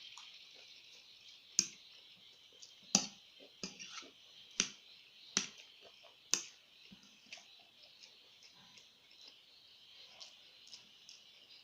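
Close-miked eating: a run of sharp, wet mouth clicks from chewing, loudest and most frequent in the first seven seconds and fainter after, over a steady high hiss.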